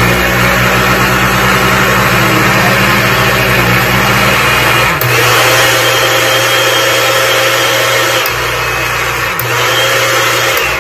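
Countertop blender motor running loud and steady, blending chunks of banana, pineapple, kiwi and orange in milk. Its hum shifts in pitch about halfway through, and it is switched off at the end.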